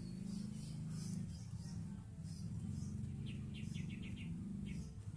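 Small birds chirping again and again, with a quick trill of about seven chirps a little after three seconds in, over a steady low hum.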